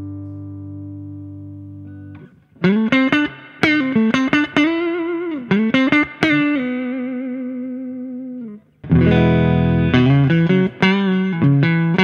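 Electric guitar played through an amp: a held chord fades out, then single-note lead phrases with bends and vibrato, and from about nine seconds in louder, rhythmic picked chords.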